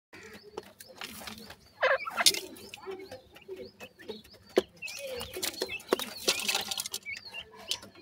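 Young francolin chicks chirping in many short, high calls, with a louder flurry about two seconds in. A few sharp taps sound as they peck in loose dry soil.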